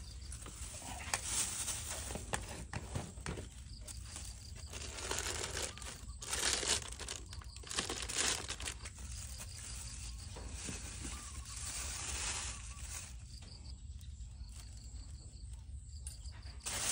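Thin plastic bags crinkling and rustling in irregular bursts as they are handled, over a faint steady low hum.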